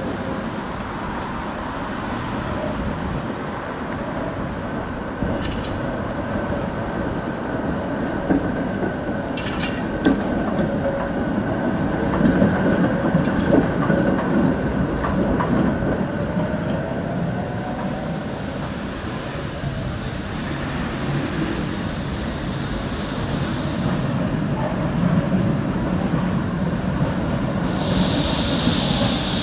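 City trams running on street track, mixed with road traffic: a steady rumble of wheels on rail with scattered clicks. There is a steady high whine through the middle, and a brief high squeal near the end as a tram rounds a curve.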